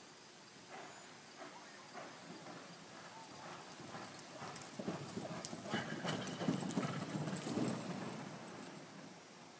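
Hoofbeats of a horse loping on soft arena dirt, separate strikes at first, growing louder and busier until the hooves churn and spray dirt in a fast reining manoeuvre, then fading near the end.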